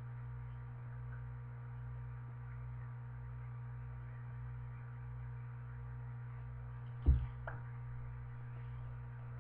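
Steady low electrical hum, with one short thump about seven seconds in.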